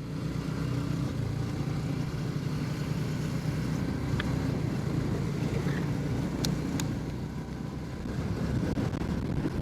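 Motorcycle engine running steadily while riding along, an even low hum with road rumble underneath. Two short clicks come a little after halfway.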